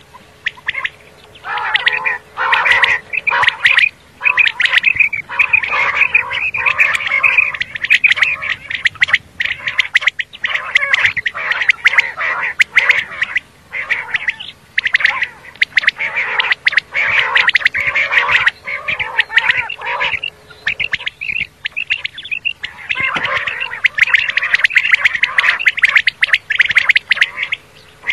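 Common quail calling over and over in dense, rapid runs of several seconds, with short pauses between them: a recorded quail call of the kind played to lure quail for hunting.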